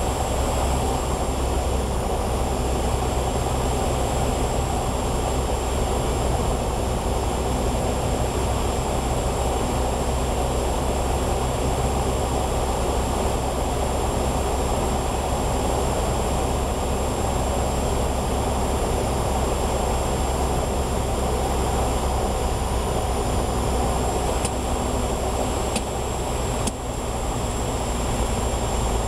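Steady in-cabin drone of a Piper Cherokee Six 300 gliding in with its six-cylinder Lycoming engine throttled back for a simulated engine failure: low engine hum and airflow, with a thin steady high whine. A couple of faint clicks come near the end.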